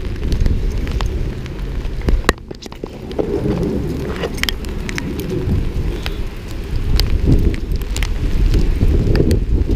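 Heavy rain, with drops striking close to the microphone in many sharp ticks, over a low rumble of wind buffeting the microphone.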